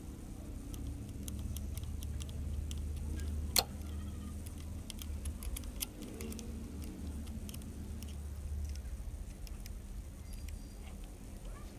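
Scattered light metallic clicks and taps of a spanner turning the spring nuts on a Royal Enfield Bullet's clutch pressure plate as they are tightened down, with one sharper click about three and a half seconds in.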